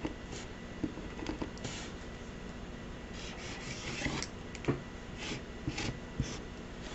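Plastic-bodied Sharpie poster paint marker worked on a wooden desk top: faint scratchy strokes of the nib, with a few light taps as the pressable nib is pumped to bring the paint down.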